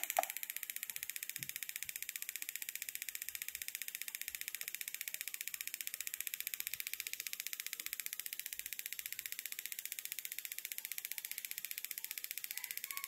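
Toyota ignition coil firing under a test driver board's pulses at about fifteen a second: a fast, even ticking of sparks.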